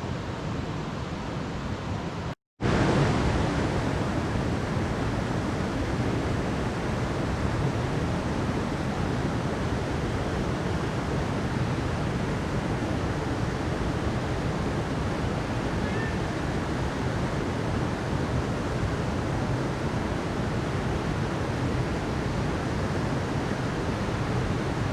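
Steady rushing water, an even hiss with no rhythm. It cuts out completely for a moment about two and a half seconds in and comes back slightly louder.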